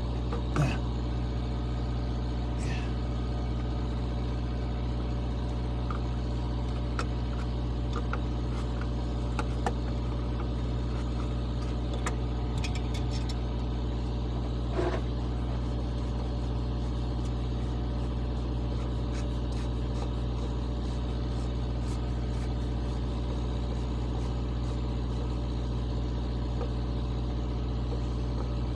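A truck engine idling steadily, with a few light clinks and knocks from hands and tools working on the fuel filter.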